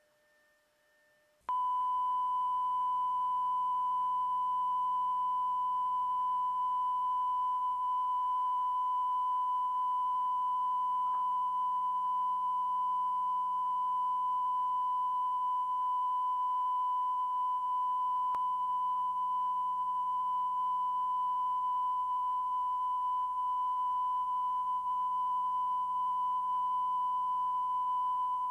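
Steady electronic test tone: a single unwavering high beep that starts suddenly about a second and a half in, after silence, and holds without a break.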